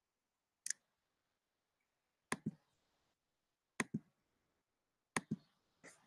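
Computer mouse clicks: short, sharp clicks, mostly in quick pairs, about a second and a half apart, with near silence between.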